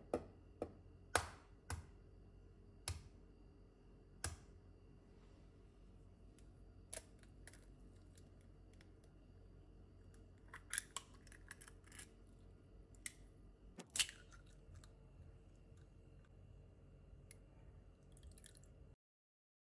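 Scattered sharp taps and knocks of eggs being cracked and handled over a plastic measuring jug on a countertop, against faint room tone; the loudest knock comes about fourteen seconds in.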